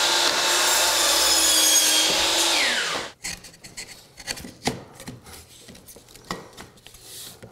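Power miter saw cutting through an engineered hardwood plank, its motor winding down about three seconds in. After that come light knocks and clicks as the cut click-lock plank is set into place on the floor.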